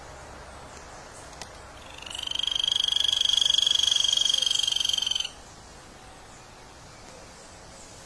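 A loud, rapidly pulsed animal trill at a steady high pitch, rising in over about half a second and lasting about three seconds before cutting off abruptly, over quiet forest ambience.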